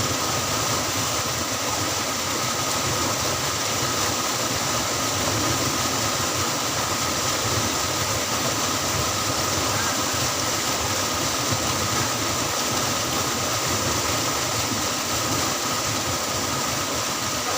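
A steady motor running with a constant hiss, unchanging throughout.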